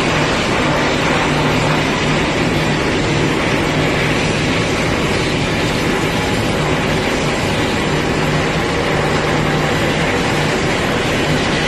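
A boat's engine running steadily, a constant low hum under a dense wash of noise, with no change in pitch or level.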